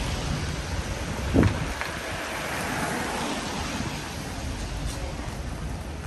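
Wet city street ambience: a steady hiss of rain and traffic on wet road, with one short loud thump about a second and a half in.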